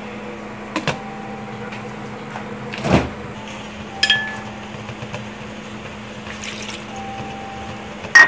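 Glass lid being set on a stainless steel cooking pot: a few light clicks, then a knock about three seconds in and a ringing metal ping a second later. A sharp clink, the loudest sound, comes near the end, over a steady low hum.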